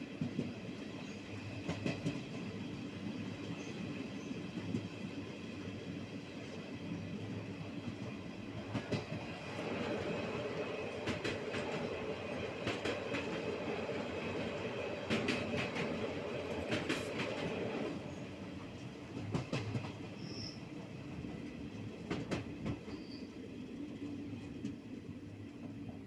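Train running on the track, heard from inside a moving coach: a steady rumble of wheels on rail with clusters of clicks as the wheels pass over rail joints. For several seconds midway it grows louder, with a steady drone added.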